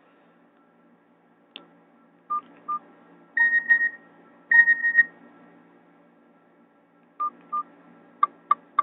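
Short electronic beeps and tones from a Nokia 216 phone's speaker. There are paired key beeps, then a short two-note tone played twice, then two more beeps. Three sharp clicks come near the end.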